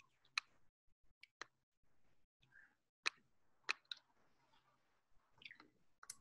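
Computer mouse clicking about eight times at irregular intervals, a few sharp clicks each, with near silence between them.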